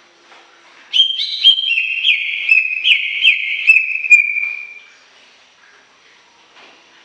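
Cucak ijo (green leafbird) singing a fast run of about eight clear whistled notes, each starting sharply and sliding slightly down, ending in a longer note that fades away.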